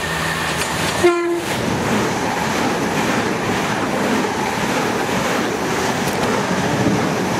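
Southern Class 377 Electrostar electric multiple unit: its horn sounds a steady tone that stops about half a second in, then the train passes at speed close by with a loud rushing of air and wheel clatter on the rails. A brief thump comes about a second in.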